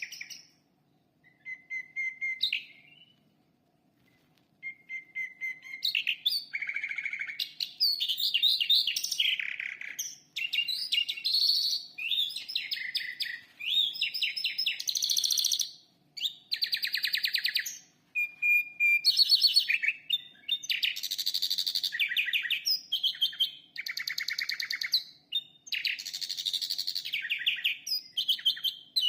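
Calandra lark singing: a few short whistled notes, then from about five seconds a long, rich run of rapid trills, buzzy rattles and whistled phrases with only brief pauses.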